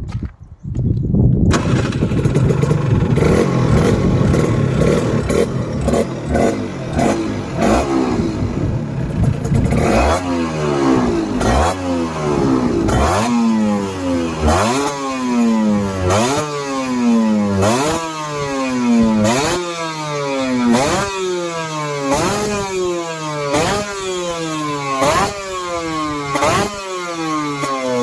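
Gilera CX 125's race-prepared two-stroke single-cylinder engine starting and running unevenly, then revved repeatedly from about ten seconds in. Each blip rises quickly in pitch and falls back more slowly, roughly every second and a half.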